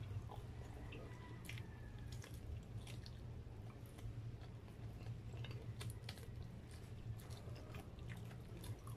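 Close-up eating sounds: a person chewing and biting meat off a bone, with scattered short wet mouth clicks and smacks over a steady low hum.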